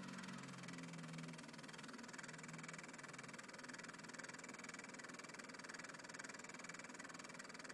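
An opened 3.5-inch floppy drive running its motors: a steady, faint mechanical whir with a fine rapid buzz to it, which gets brighter about two seconds in.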